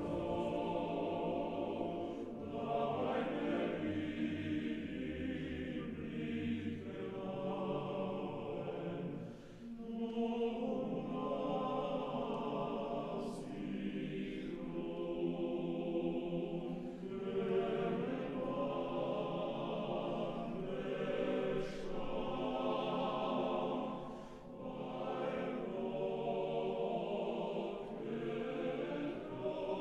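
Choral music: a choir singing slow, held phrases, with brief pauses twice.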